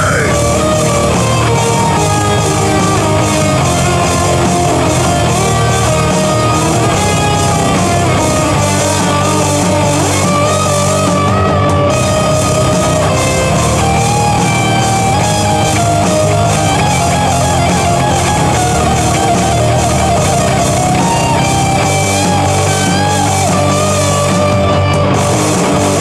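Rock music without vocals: distorted electric guitars over a drum kit, steady and loud.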